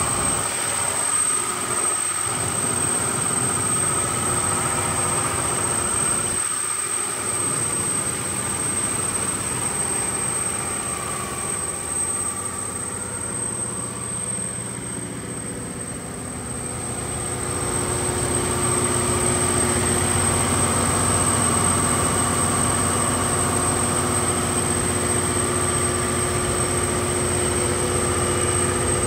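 MTU 12V4000 V12 diesel engine of a Katolight 1600 kW generator set running steadily, with a steady high-pitched whine over the engine sound. It is briefly quieter about halfway through.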